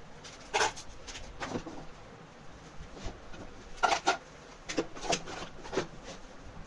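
Sharp knocks and clicks of a homemade PVC-sheet drawer unit being handled, with the loudest clatter about four seconds in as small toggle switches are tipped from a plastic bag into the empty drawer.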